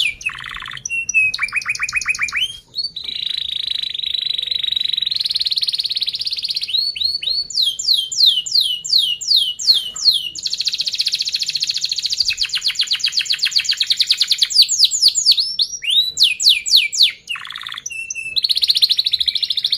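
Domestic canary singing a long, varied song. Fast rolling trills alternate with runs of quick, repeated downward-sweeping chirps, broken by two brief pauses.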